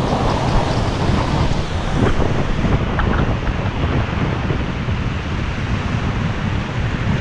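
Breaking ocean surf washing around a wader, with strong wind buffeting the microphone: a steady, loud rush of noise.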